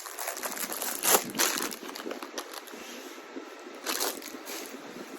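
Packaging crinkling and rustling as a toy is handled, in irregular bursts, with louder crinkles about a second in and again near four seconds.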